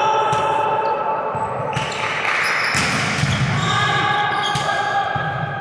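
Volleyball practice: balls struck and bouncing off a gym floor several times, with players' voices calling out.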